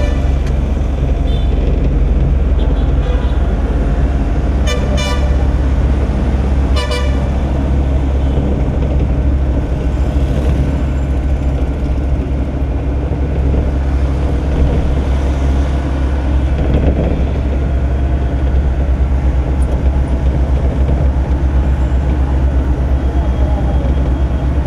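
A steady low drone of a vehicle's engine and road noise, heard from inside the moving vehicle. A vehicle horn toots in short blasts about five seconds in and again about seven seconds in.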